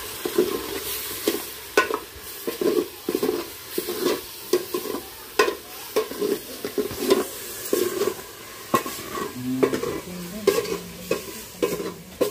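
Metal ladle stirring hot broth in an aluminium pot, knocking and scraping against the pot a bit more than once a second, the liquid swishing with each stroke.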